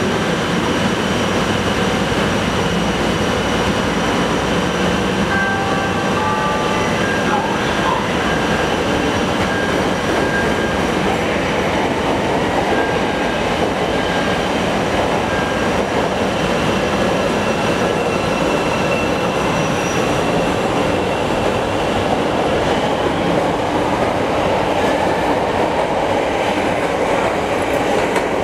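Chicago "L" Bombardier 5000-series rapid-transit train running steadily while it stands at the platform, with a few short chime tones about six seconds in. From about twenty seconds in, the train pulls out, its traction motors giving a rising whine over the wheel and rail noise.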